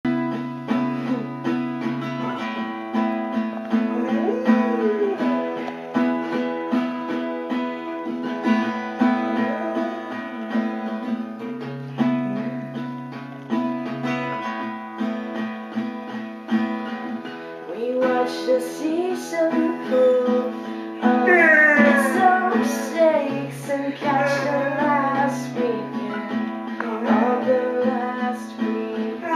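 Acoustic guitar strummed with a person singing over it; the singing grows stronger about two-thirds of the way through, with sweeping rising pitch glides.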